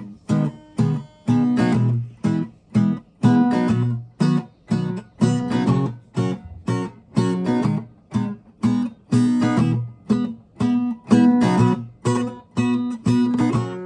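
Acoustic guitar strummed in a steady rhythm of short, choppy chords, each cut off sharply, about two a second.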